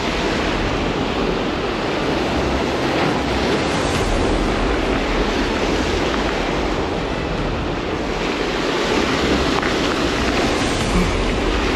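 Waves and surf washing steadily, with wind on the microphone.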